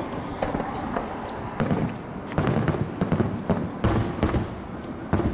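Aerial fireworks display: shells bursting with repeated sharp bangs and crackling, busiest around the middle.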